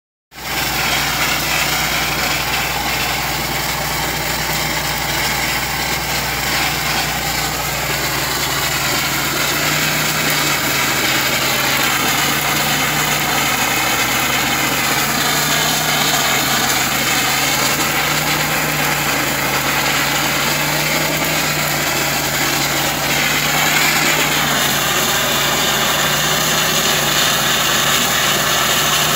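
Gunite nozzle spraying cement mortar onto the wire mesh of a steel pipe, a steady rush of compressed air and sprayed material. Under it a machine engine runs steadily, its low hum drifting slightly in pitch.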